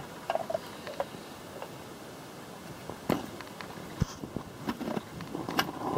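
Scattered faint clicks and a few light knocks as the low-band servo piston of a Powerglide automatic transmission is handled and pressed into its bore in the case, with one sharper knock about four seconds in.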